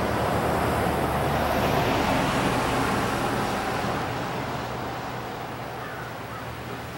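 An SUV driving along a paved street, making a steady rush of tyre and engine noise. The sound fades gradually over the second half as it moves away.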